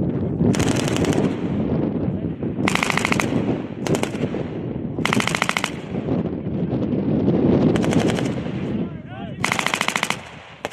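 Belt-fed machine guns firing short bursts of rapid shots, about six bursts of under a second each, a second or two apart, over a continuous low rumble.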